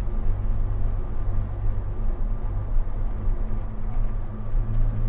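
Car engine and drivetrain running with a steady low hum, heard from inside the cabin as the car drives slowly through floodwater.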